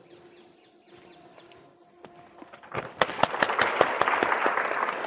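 A crowd clapping: dense, loud applause that breaks out about three seconds in, after a quiet stretch with faint bird chirps.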